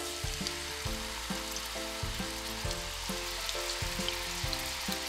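Beef steak rolls sizzling as they fry in hot oil in a nonstick pan, a steady frying hiss. Light background music plays over it, with short notes changing about twice a second.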